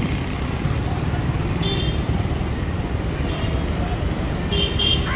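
Busy road traffic: a steady rumble of engines and tyres, with short vehicle horn toots about two seconds in and again about three seconds in, then a quick run of toots near the end.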